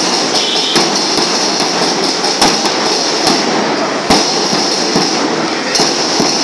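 Band melam percussion, drums and cymbals, playing a dense continuous beat with a heavier accented hit a little more than every second and a half. It is loud and crowded, as picked up on a phone.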